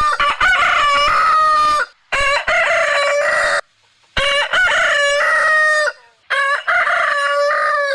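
Rooster crowing, four loud cock-a-doodle-doo calls in a row, each lasting about one and a half to two seconds with short pauses between.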